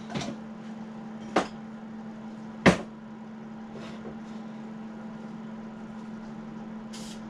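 Rifle and gear knocking on a wooden workbench as they are handled: three sharp knocks in the first three seconds, the last the loudest, over a steady low hum. Two short hisses come near the end.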